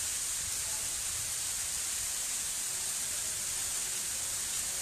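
Steady hiss of volcanic ash and tiny stones (lapilli) falling on roofs and ground in an ashfall from the Hunga Tonga eruption.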